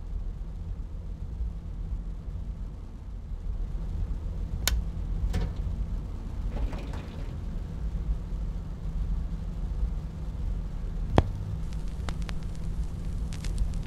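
Turntable tonearm being handled and its stylus set down on a vinyl record over a low steady hum. A few sharp clicks come from about five seconds in, then a louder click about eleven seconds in, followed by faint crackle from the record's surface.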